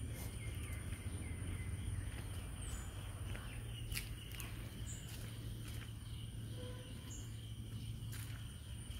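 Steady insect chirring at two constant high pitches over a low steady rumble, with scattered light clicks and rustles.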